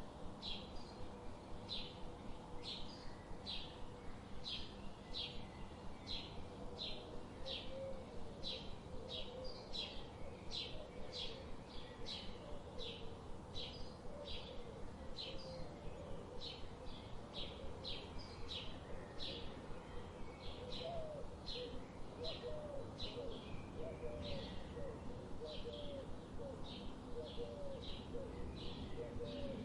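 A songbird calling steadily in short, sharp chirps, about two a second. Softer, lower curling calls join in from about eight seconds, over a steady background hiss.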